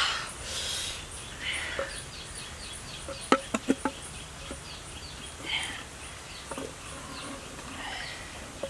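Insects chirping, a high chirp repeating about three times a second, with a few other short calls. There are four sharp clicks a little over three seconds in.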